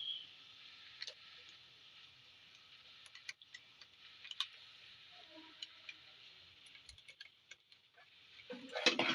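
Faint steady hiss with scattered light, irregular clicks and taps of kitchen utensils.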